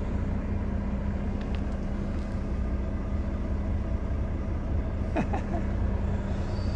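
Volvo lorry's diesel engine idling with a steady low hum, heard inside the cab, with a couple of light knocks about five seconds in.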